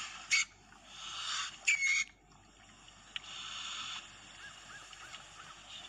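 Asian palm civet (musang pandan) calling: two sharp screeches about a second and a half apart, the second longer and ending in a short high squeal, over a steady hiss.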